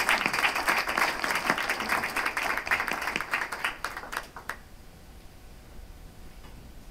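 Audience applauding, dying away about four and a half seconds in, followed by quiet room tone.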